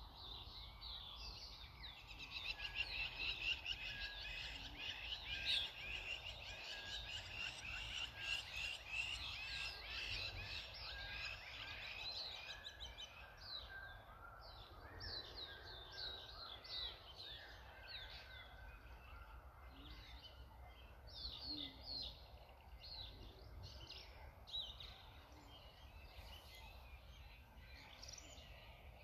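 Morning chorus of birds in trees: many high, rapid chirps and trills overlap densely at first, then thin out to separate short calls about halfway through.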